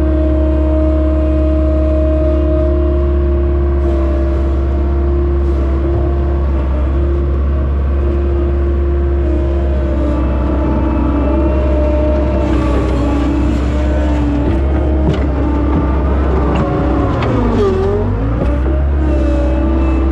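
John Deere skid steer's diesel engine running steadily at high revs while loading manure with the bucket, its pitch wavering and dipping briefly under load near the end.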